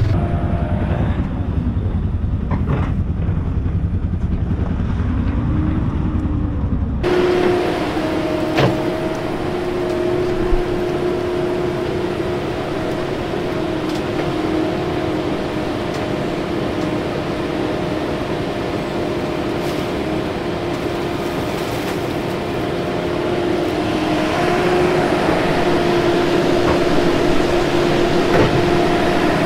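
A vehicle engine running, heard from inside its cab, for about seven seconds. It cuts abruptly to a steady hum of engines at an open excavation: an excavator digging and a small portable pump running to drain water from the hole.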